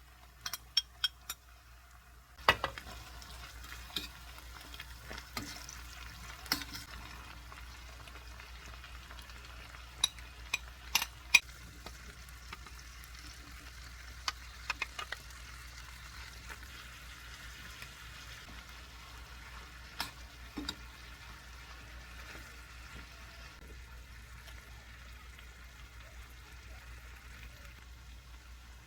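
A few light clicks, then about two and a half seconds in, food hitting a hot pan starts sizzling steadily, with occasional sharp knocks of a utensil against the pan as it is stirred.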